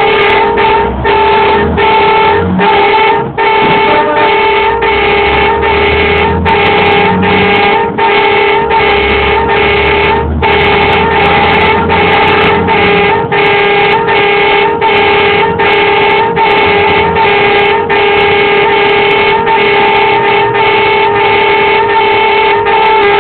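A tow truck's warning horn sounds continuously and loudly while the truck pushes through stopped traffic. Its upper tones pulse about three times every two seconds, over the low rumble of the truck's engine.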